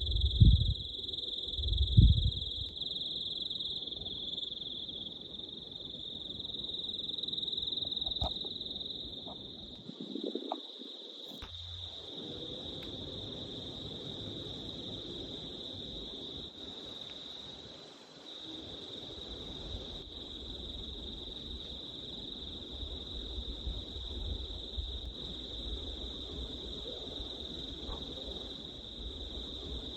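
Night chorus of bush insects or frogs: one steady, high-pitched trill throughout. Two loud low thumps come in the first two seconds.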